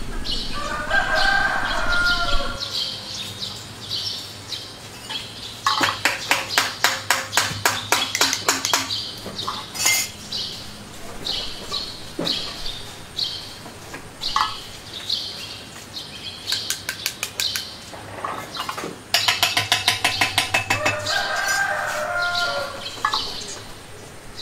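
A rooster crowing twice, once near the start and once near the end, over steady chirping of small birds. In between come three bursts of rapid clattering clicks, about 8 to 10 a second.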